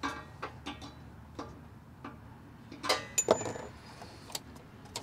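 Irregular metal clicks and clinks of a small hand wrench working the nuts on a valve-stem extension at a chrome wheel. The loudest cluster comes a little past halfway.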